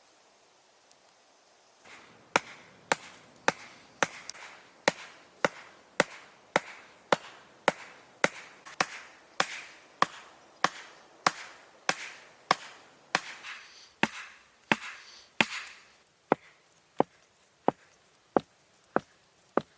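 An axe chopping wood: steady, evenly spaced sharp strikes, about two a second, starting about two seconds in.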